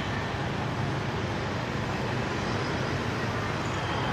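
Steady street traffic noise, a continuous even rumble with no distinct single event.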